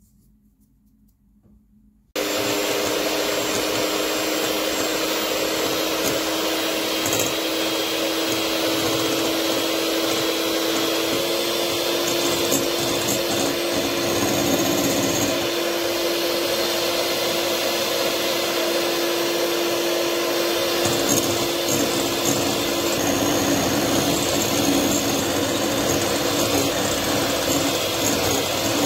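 Electric hand mixer starting suddenly about two seconds in, then running steadily with a constant motor hum, its beaters whipping egg whites into a thick white foam.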